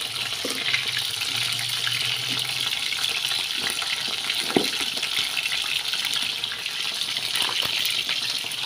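Hot oil sizzling steadily under sautéed onions, ginger and whole spices with a heap of curry powder just added.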